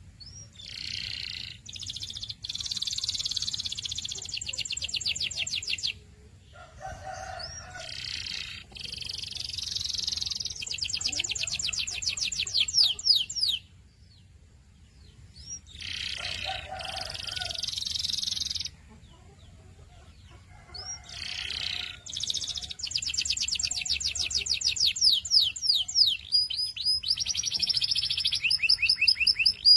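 Canary singing in phrases of varied notes, each building into fast rolling trills, with short pauses between phrases about 6, 14 and 19 seconds in.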